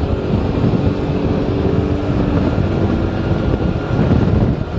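Car driving along a road: steady engine and road rumble with wind buffeting the microphone.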